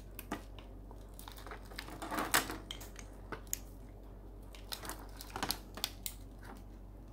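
Plastic bag crinkling in the hands, with scattered clicks and knocks as metal bicycle pedals and a bottle cage are handled and set down; the loudest rustle comes a bit over two seconds in, and a cluster of clicks follows near the end.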